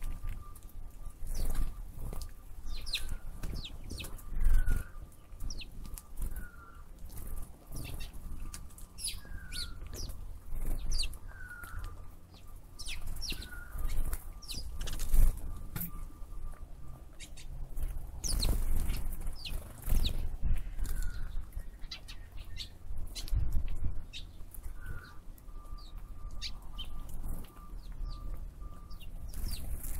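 Wild birds chirping and calling: many quick high chirps, and a short falling call repeated about every two seconds, over an uneven low rumble of wind on the microphone.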